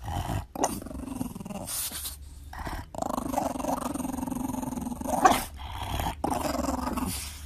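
French bulldog growling in a run of drawn-out, rough growls, each half a second to two seconds long with short breaks between, and one sharper, louder note about two-thirds of the way through.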